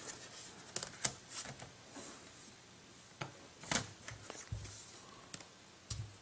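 Rubberized plastic back cover of a Barnes & Noble Nook e-reader being pressed and snapped back onto the device: a few faint, scattered clicks and taps as the clips seat. The loudest click comes a little under four seconds in.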